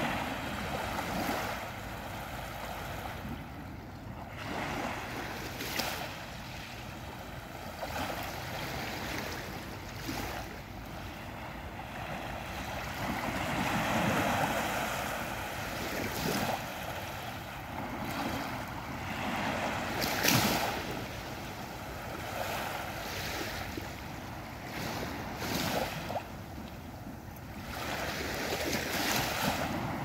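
Small waves of a calm Mediterranean sea lapping and washing up onto a sand-and-pebble beach, the wash swelling and falling back every few seconds, loudest about two-thirds of the way through.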